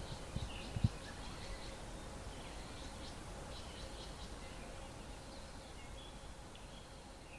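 Outdoor ambience with scattered faint, high chirps of small birds in the background, and a few low thumps in the first second.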